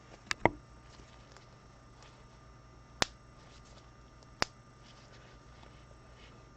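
Sharp clicks and taps from trading cards being handled while a pack is sorted: two quick ones just after the start, then single clicks at about three seconds and about four and a half seconds, over faint room tone.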